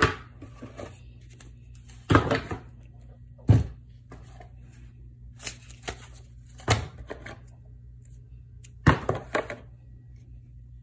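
Board game pieces being handled and set down on a table: a series of short knocks and rustles of cardboard, paper and plastic, about half a dozen of them, over a low steady hum.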